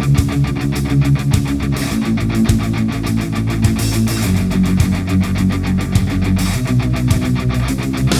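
Heavy metal music with distorted electric guitar and a fast, driving beat.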